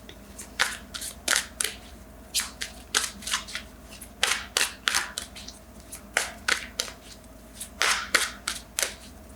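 Tarot cards being shuffled and handled by hand: a series of sharp card snaps and slaps at irregular intervals, several in quick clusters.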